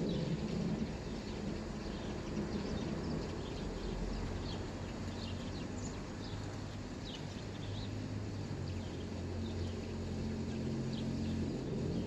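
Steady rain hiss with songbirds chirping in short scattered calls. A low engine drone from a distant vehicle joins about a third of the way in and holds steady.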